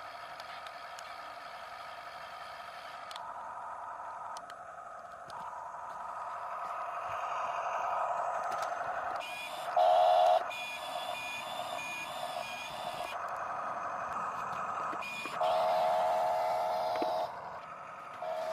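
Electric motors of a Huina 1573 RC excavator whining steadily, growing louder twice: briefly about ten seconds in, and for about two seconds near the end.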